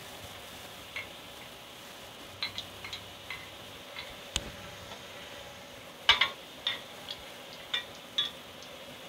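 Scattered light clicks and clinks of a stainless-steel idli plate as cashews are set into its greased cups and the plate is handled, with the sharpest metal clinks about six seconds in. A steady faint hiss runs underneath.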